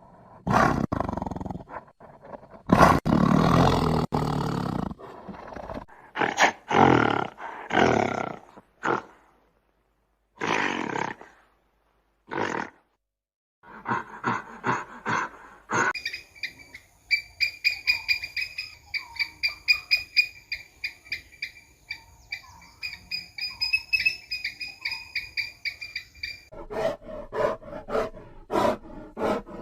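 A string of different wild animal calls. Loud roars fill the first nine seconds, followed by a few shorter calls. A fast run of high, rapidly repeated chirps lasts about ten seconds, and loud pulsed calls come back near the end.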